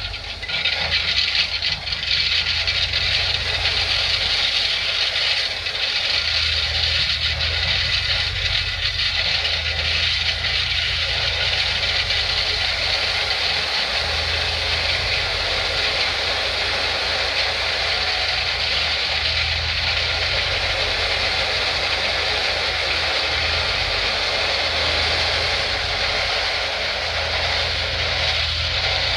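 Dump truck's engine running while gravel pours and rattles out of its tipped bed, a steady rushing hiss that sets in about two seconds in.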